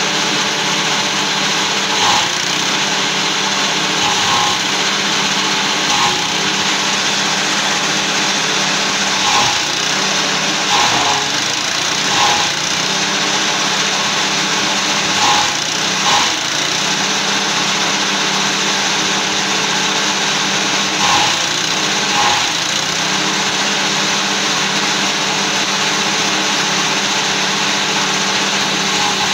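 Small petrol engine running a forage chopper steadily, its pitch sagging briefly about ten times as bundles of green maize stalks are fed in, each load marked by a short burst of chopping noise.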